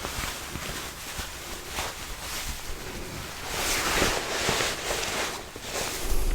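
Close-miked ASMR mouth sounds: soft wet mouth clicks over a breathy hiss of air against the microphone, which swells for about a second near the middle.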